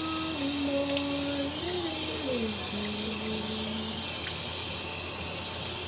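Bathroom tap running steadily, a hiss of water into the sink while a face is washed. Over it a woman hums a slow tune in held notes, stopping about three and a half seconds in.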